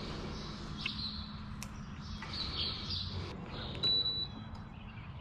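Small birds chirping several times, with a brief high steady note about four seconds in, over a faint low steady hum.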